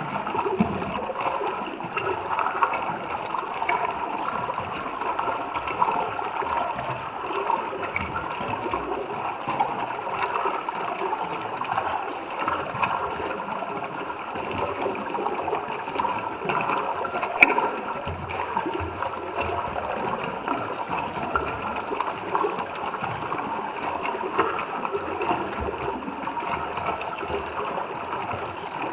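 Running stream water bubbling and gurgling steadily, with one brief click a little over halfway through.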